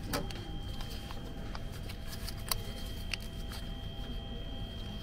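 Ticket vending machine humming with a thin steady high whine, with scattered light clicks and taps as the touchscreen is used and a banknote is handled; the sharpest click comes about two and a half seconds in.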